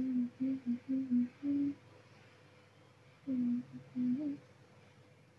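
A person humming a tune in short held notes, breaking off about two seconds in, then humming a few more notes near the four-second mark.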